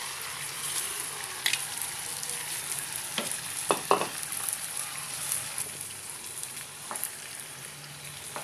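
Chicken masala and soaked rice sizzling in hot oil in a nonstick wok as a wooden spatula turns them, with a few sharp knocks of the utensils against the pan, the loudest a pair just under halfway through.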